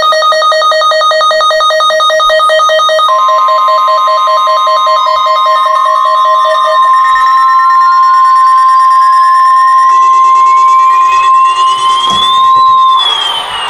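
Emergency Alert System alarm tones for an AMBER Alert, several overlapping: a rapidly pulsing electronic alarm beep. About three seconds in, a steady single-pitch warning tone joins it and holds until near the end. Another tone sweeps slowly upward in pitch and falls away near the end.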